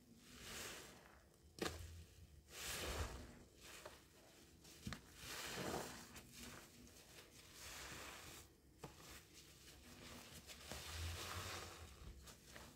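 Soap-soaked sponge squeezed by hand in a tub of suds: quiet wet squelches about every two to three seconds, with a few sharp clicks between them.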